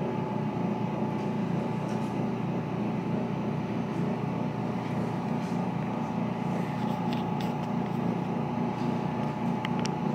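A steady low hum with a thin steady whine above it, even in level throughout, cutting off abruptly at the end.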